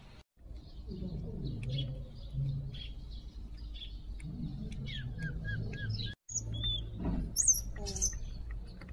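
Repeated short high chirps and squeaks, with a run of four quick falling notes about five seconds in and sharper, higher chirps near the end, over low uneven sound of baby monkeys sucking at milk bottles. The sound drops out for a moment twice.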